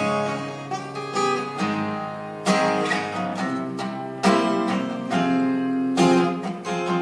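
Acoustic guitar strummed, chords ringing between strong downstrokes that fall roughly every two seconds, with no singing over it.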